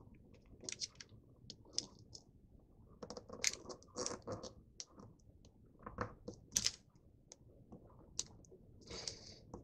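Origami paper crinkling and rustling as it is folded and creased by hand: scattered short, irregular crackles, with a longer rustle near the end.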